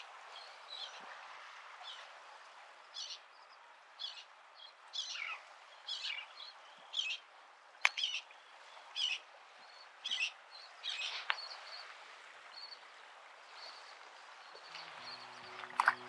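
Short, high bird calls repeated about once a second over a steady background hiss, with a single sharp click in the middle.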